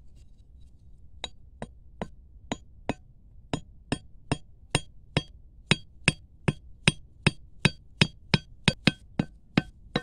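A machete blade knocking a wooden stake into hard, sandy ground: a steady run of sharp, slightly ringing blows, about two to three a second, beginning about a second in and quickening toward the end.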